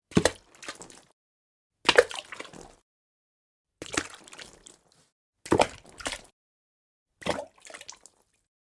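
Water drops falling one at a time into water, five drips about every two seconds, each a sharp plop followed by a smaller splash.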